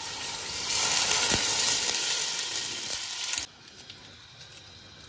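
Mutton stock poured into a hot steel pot of browned mutton and spices, hissing and sizzling as it hits. It grows louder about a second in and cuts off abruptly about three and a half seconds in.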